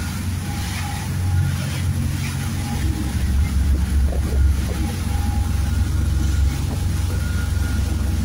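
Motorboat engine running at cruising speed, a steady low drone, with wind and churning water from the wake.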